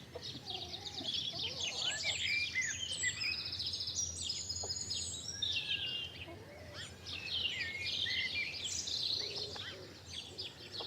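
Several songbirds singing at once, a dense chorus of overlapping chirps and trills, over a steady low rumble.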